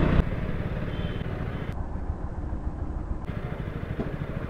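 Steady, uneven rumble of road traffic, with no single engine standing out.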